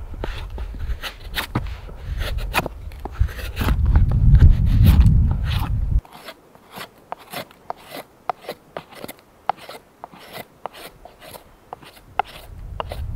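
Knife blade shaving thin curls off a split stick of dry wood for fire tinder: a quick series of short scraping strokes, about two or three a second. A low rumble runs under the first half and cuts off abruptly about six seconds in.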